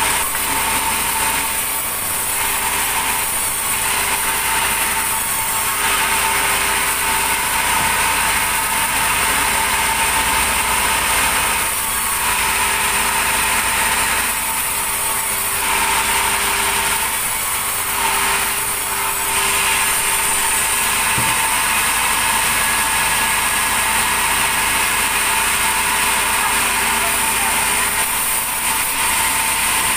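A motor running steadily without stopping, with a constant whine.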